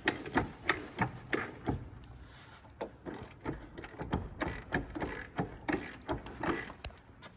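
Hand ratchet wrench clicking in short strokes, a run of sharp metallic clicks coming in irregular bursts.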